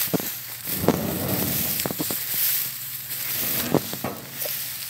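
Kubota DC-105X combine harvester's engine running at a low idle, a steady hum under crackling, rustling noise with scattered sharp clicks.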